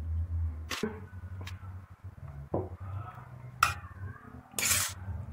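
Dry lasagna sheets being snapped and laid into the baking dish: a few sharp clicks and knocks, then a short, loud crackling rustle near the end, over a steady low hum.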